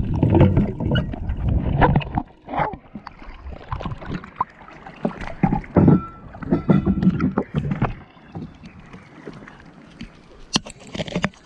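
Water splashing and sloshing around a swimmer surfacing at a boat's ladder and climbing out. A dense underwater rumble is loudest in the first two seconds, followed by irregular splashes and a few sharp knocks near the end.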